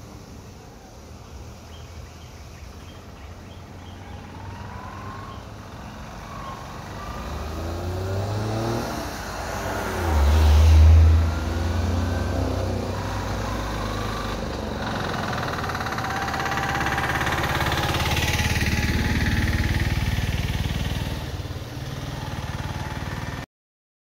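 Road traffic: motor vehicle engines running and revving, building up and growing louder, with a loud low rumble about ten seconds in. The sound cuts off abruptly near the end.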